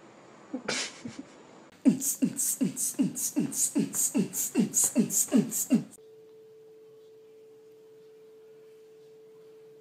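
A short spritz from a trigger spray bottle, then a quick run of about a dozen short falling-pitch comedy sound effects, about three a second, then a steady pure tone held for the last few seconds.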